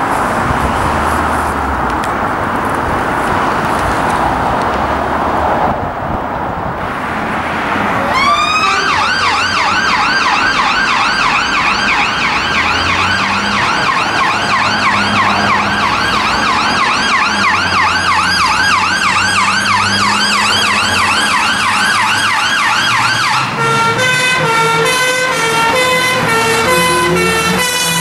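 Vehicle noise with no siren at first. From about eight seconds in, a UK fire engine's siren sounds on a fast up-and-down yelp, with the engine running beneath it. A few seconds before the end the siren changes to a rapid two-tone alternation.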